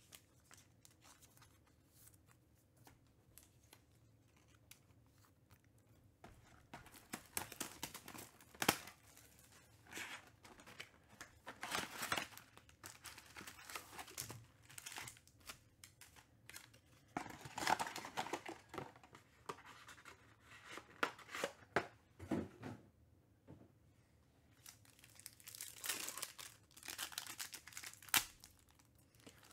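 Foil-wrapped trading-card packs rustling as they are pulled from their cardboard hobby box, then a foil pack torn open and crinkling, in irregular bursts after a quiet first few seconds.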